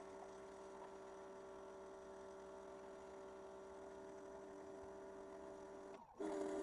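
Faint, steady electrical hum of several held tones. About six seconds in it drops out for a moment and comes back louder.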